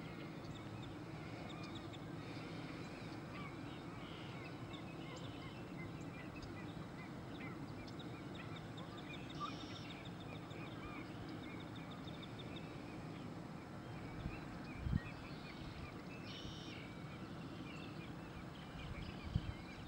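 Wetland bird ambience: a steady background of many small bird chirps and calls, with two short higher trills about nine and sixteen seconds in. Brief low thumps come near fifteen seconds and again near the end.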